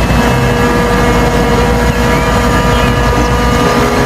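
Steady motor drone, a low pulsing rumble under constant unchanging whining tones.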